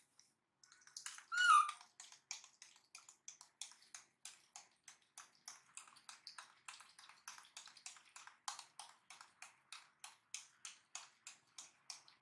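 Baby macaque sucking milk from a feeding bottle, a steady train of wet sucking clicks at about four a second. A short high-pitched cry comes about a second and a half in.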